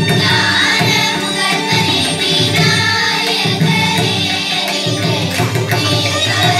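A group of children singing together in chorus through stage microphones and loudspeakers, with violin and drum accompaniment.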